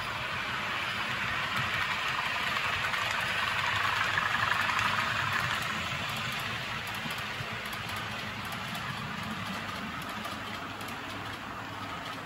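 Model diesel locomotives' DCC sound decoders playing diesel engine sound, under the rolling rumble of an OO gauge freight train of tank wagons running past on the track. The rumble swells to its loudest about four to five seconds in, then eases off.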